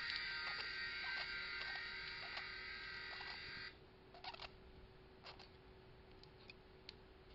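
A metalcore song playing faintly in the room, with a pet budgerigar chirping over it. The music cuts off about four seconds in, leaving a handful of short, scattered budgie chirps against a faint steady hum.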